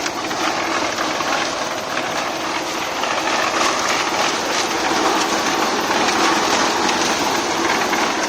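Construction machinery running steadily, with a dense rattling clatter throughout.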